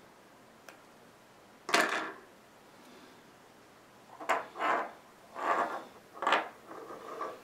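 Hands handling monofilament fishing line on a wooden desk: a faint click, then a louder, short scraping rustle about two seconds in, followed by a run of short rubbing scrapes as the line is pulled out.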